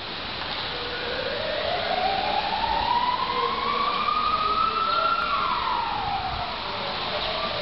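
A siren wailing: one slow rise in pitch over about four seconds, then a fall, starting to rise again near the end, over a steady background noise.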